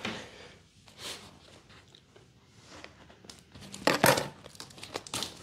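Cardboard box being handled and pried open by hand: scattered rustles and scrapes of cardboard, with the loudest scrape about four seconds in as a flap is pulled at.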